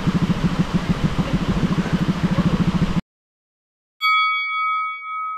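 A small engine running steadily with a fast, even pulse, cut off suddenly about three seconds in. After a second of silence, a single bright chime rings and fades near the end.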